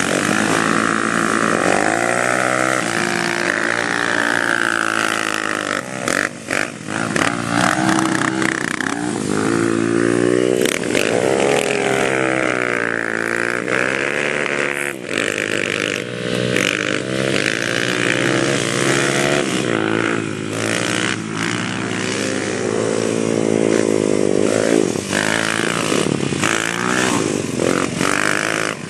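ATV (quad bike) engine revving up and falling back over and over as it is driven and drifted, with a few sharp knocks and clatters now and then.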